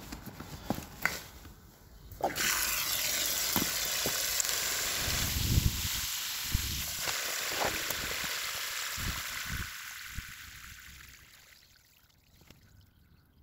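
A few knocks, then water gushes out through the drain valve of a welded steel tank full of water, starting suddenly about two seconds in. It runs steadily, then tapers off and dies away as the tank empties.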